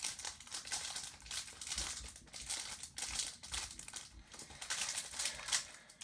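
Foil wrapper of a Pokémon card booster pack crinkling in irregular bursts as it is handled.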